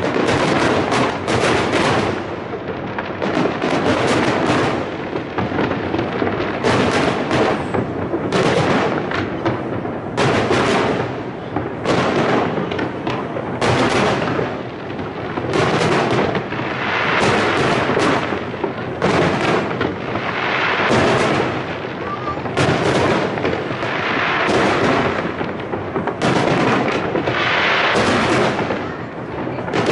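Aerial firework shells bursting over the harbour in a dense, continuous barrage, one bang after another with no real pause.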